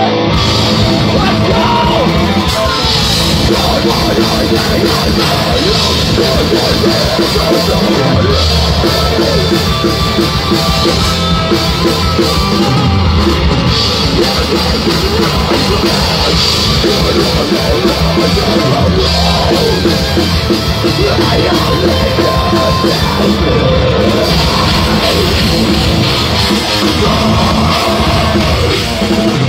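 Live heavy rock band playing loudly: electric guitar and drum kit, with no break in the music.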